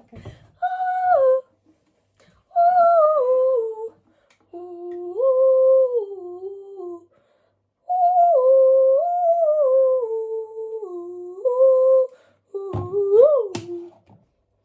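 A woman humming a tune in five short phrases, with notes that step up and down and short breaks between phrases. Near the end the hum rises quickly to a brief high note.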